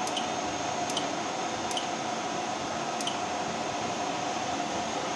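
Keys on a fire alarm control panel's keypad being pressed to exit a menu: four short clicks, each with a brief high beep, in the first three seconds, over a steady hum of room noise.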